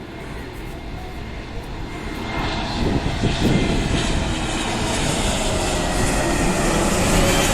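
Jet airliner's engines, a broad steady rush with a faint whine, growing louder as the plane comes closer over the airport surroundings.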